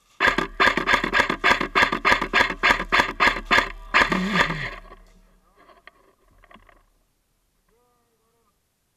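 Airsoft gun firing a rapid string of shots, about five a second for some three and a half seconds, then a short denser burst that fades away.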